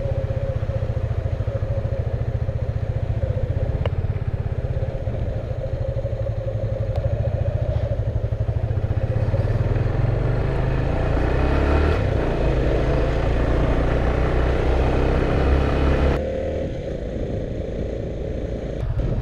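Motorcycle engine running on the move, under a steady rush of noise. The sound grows fuller through the middle, then drops abruptly about sixteen seconds in to a quieter, lower engine sound.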